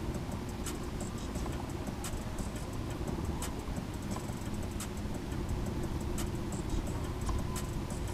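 Spinning reel being cranked in a slow, steady retrieve, with a faint click about every second or so, over a steady low rumble.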